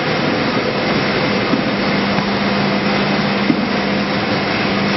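PVD vacuum coating machine running: a loud, steady machinery noise with a constant whine, and a low hum that comes in about a second and a half in.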